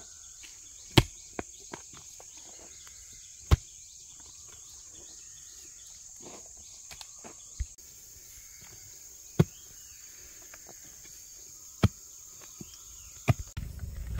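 A digging tool striking into the ground about six times, a couple of seconds apart, as wild yam tubers are dug out. Insects keep up a steady high buzz throughout.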